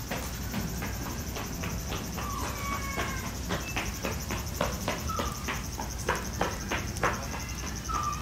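Insects chirping steadily in a high, fast-pulsing trill, with scattered light clicks and taps throughout and a few brief high chirps.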